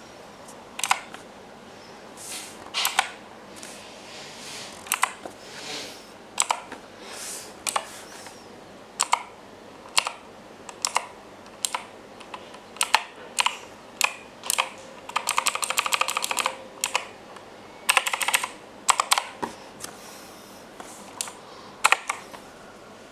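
Keys of an Imperion Mech 10 mechanical keyboard being pressed one or two at a time, about once a second, with quick runs of rapid keystrokes about two thirds of the way through.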